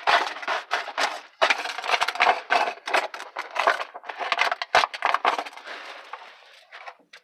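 A product box being torn open one-handed: dense crackling, tearing and clicking of the packaging, which dies away near the end.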